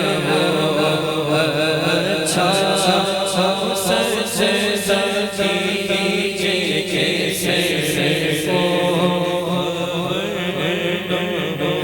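Layered voices chanting a drawn-out, wavering wordless melody: the a cappella vocal backing of an Urdu naat between sung verses.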